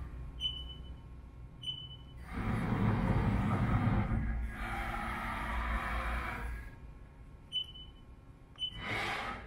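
Haas VF-4 CNC vertical mill's axis servo drives moving the spindle head and table: a whirring rush for about four seconds in the middle, over a steady low hum. Short high beeps come from the control panel twice near the start and twice near the end.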